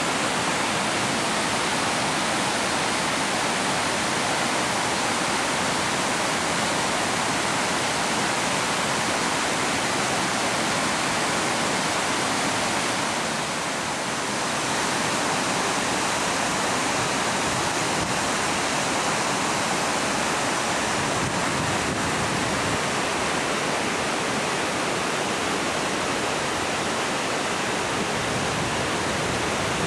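A waterfall cascading over rock ledges makes a steady rushing of water that dips briefly about halfway through.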